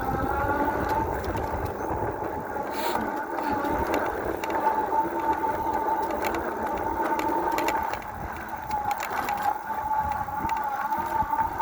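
Electric bike's motor whining steadily under way on a dirt trail, over a low rumble, with scattered clicks and rattles.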